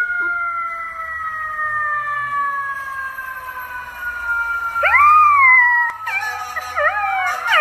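Golden retriever puppy howling: one loud howl about five seconds in that rises and then falls, followed by quicker wavering howls. Before it, a long steady siren-like wail slides slowly down in pitch.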